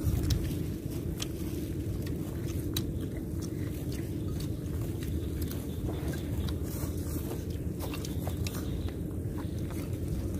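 People eating snake stew, biting and chewing on its crunchy bones, with scattered sharp clicks over a steady low rumble.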